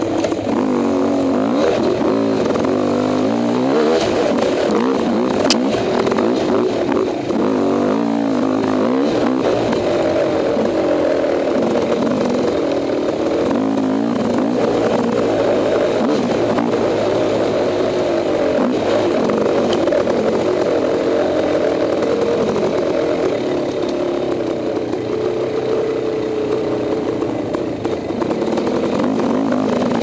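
Husqvarna WR250 two-stroke enduro motorcycle engine running under the rider, revving up and down repeatedly as the bike is ridden along a dirt trail.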